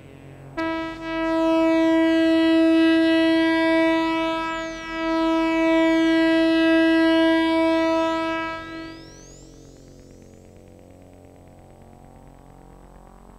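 Synthesizer tone from a Krell patch: one held note rich in overtones starts about half a second in, dips briefly midway and fades out about nine seconds in, with thin rising and falling sweeps high above it. A faint low background hum remains after it.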